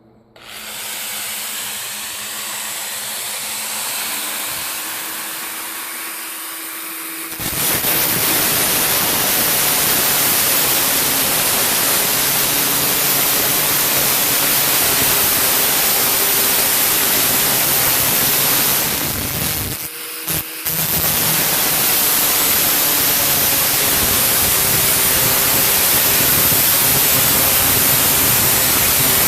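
Power metal saw cutting through a metal rain gutter, a steady harsh noise. It gets much louder about seven seconds in, as the blade bites fully, and drops out briefly about twenty seconds in.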